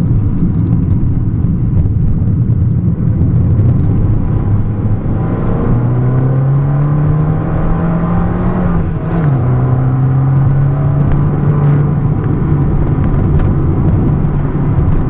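Fiat 500 Abarth's turbocharged 1.4-litre four-cylinder engine heard from inside the cabin, pulling hard under acceleration. A rumble of engine and road at first, then the engine note climbs steadily, drops sharply about nine seconds in as the car shifts up a gear, and pulls on again.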